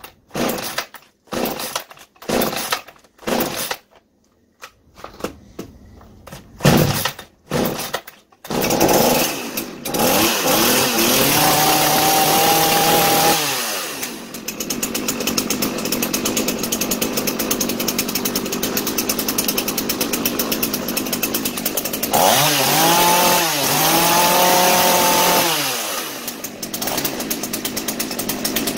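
TCS-5000 two-stroke chainsaw being pull-started on choke for its first test after a carburetor repair, new fuel filter and new primer bulb. It takes several short pulls, then catches about nine seconds in and keeps running. It revs up twice and drops back to a steady idle after each rev.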